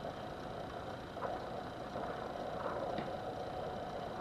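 Steady background hum with a couple of faint clicks, about a second in and near three seconds, from a sharp pick lifting the shields off small fishing-reel bearings.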